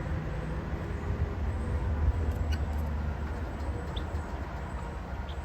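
An outdoor air conditioner unit running with a steady low hum, with a few brief high chirps from the poultry on top.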